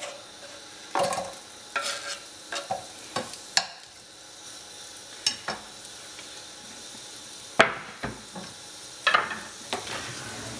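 Chopped red onion being scraped off a wooden chopping board with a knife into hot olive oil in a nonstick frying pan, a string of knocks and scrapes, the loudest about seven and a half seconds in. Under them the oil sizzles quietly as the onion starts to fry.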